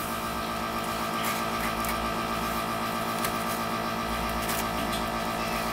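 A small machine running steadily: an even hum at one fixed pitch with a fast, regular rattle. A few faint clicks sound over it.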